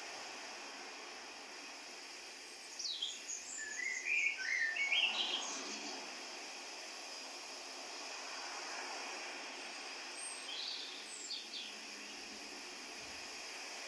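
Birds chirping in short, quickly rising and falling phrases, a cluster of calls a few seconds in and a few more later, over a steady even hiss of outdoor ambience.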